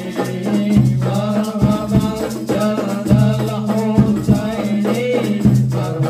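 Hadroh ensemble performing an Arabic sholawat: a man sings the lead into a microphone over a steady beat of hand frame drums and jingling tambourines, with deep low notes sounding under it.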